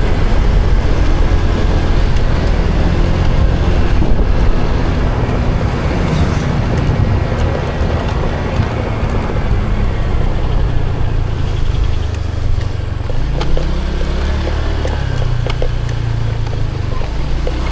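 A motor vehicle's engine running steadily under road and wind noise, its pitch dropping and then settling at a new level about twelve to thirteen seconds in, as with a change of speed or gear.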